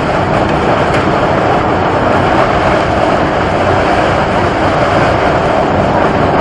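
Mud-and-water eruption jetting up out of the ground, making a loud, steady rushing hiss that does not let up.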